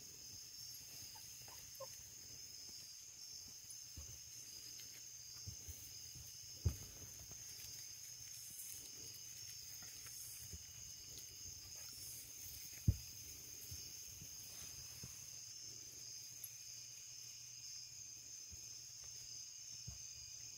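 Steady high-pitched insect chirring, like crickets, with two sharp thumps, one about seven seconds in and one about thirteen seconds in.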